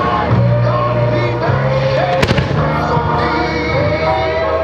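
Music plays throughout, with a pair of sharp firework shell bursts about two seconds in.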